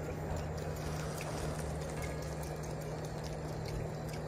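Steady outdoor background noise with a low, even hum and a few faint ticks.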